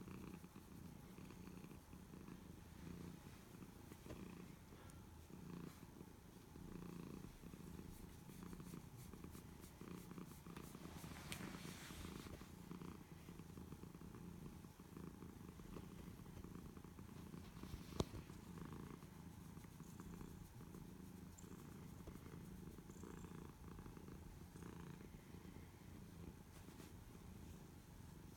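Domestic cat purring softly and steadily while being stroked, with one sharp click about eighteen seconds in.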